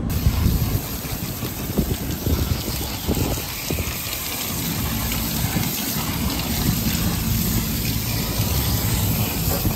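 Steady hiss of water being sprayed onto an aluminum microchannel condenser coil, with water running off and dripping onto the metal roof.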